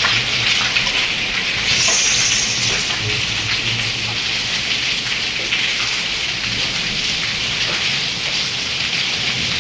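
Heavy rain mixed with hail pelting a concrete courtyard floor and walls: a steady, dense hiss of many small impacts, a little louder about two seconds in.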